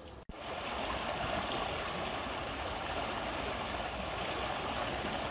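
Steady rushing of the Yellow River's current flowing past its bank, beginning abruptly a moment in.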